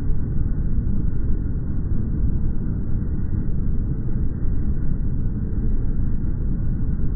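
Outdoor ambience from a phone's microphone played back slowed to a tenth of its speed, turned into a deep, steady rumbling noise with nothing distinct in it.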